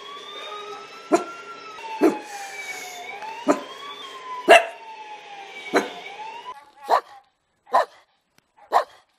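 Dog barks over a siren wailing slowly up and down, five single barks about a second apart; the siren cuts off about six and a half seconds in. Then another dog barks three times, about once a second.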